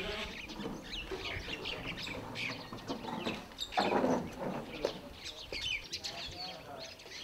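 Birds chirping and chickens clucking, with a louder burst of sound about four seconds in.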